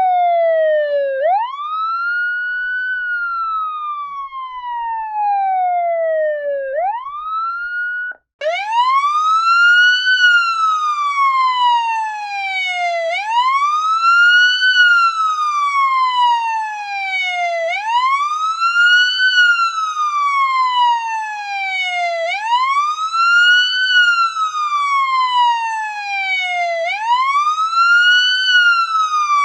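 Police siren in a slow wail, its pitch sweeping up quickly and falling slowly about every five and a half seconds. About eight seconds in it cuts off briefly, and a brighter-toned police siren takes over, wailing in slightly quicker cycles of about four and a half seconds.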